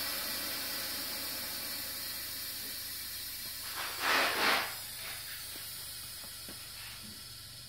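Air hissing out of an air suspension seat's built-in air cushion through its release valve, starting abruptly and slowly fading, with a louder surge about four seconds in.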